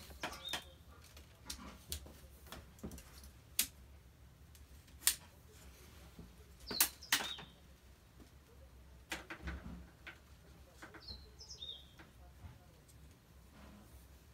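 Red tent pole being handled and fitted together, giving sharp clicks and knocks about every second or two. A few short high chirping squeaks come around the middle and near the end.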